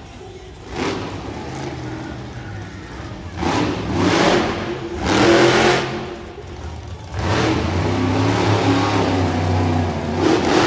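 Monster truck engine revving in repeated bursts that swell and fall, with the longest stretch of throttle toward the end.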